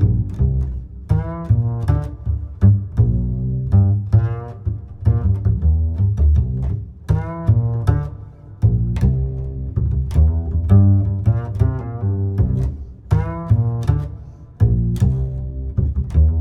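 Instrumental background music with a deep bass line and sharp plucked notes, in a phrase that repeats about every six seconds.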